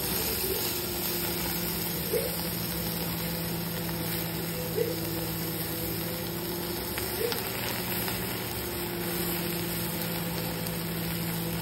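A steady low mechanical hum over an even hiss, as chicken pieces cook on a wire grill over a charcoal clay stove. A few light clicks come through about two, five and seven seconds in.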